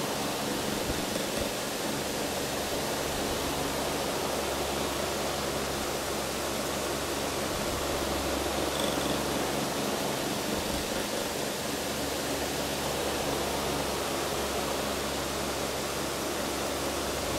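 Steady hiss with a low hum underneath.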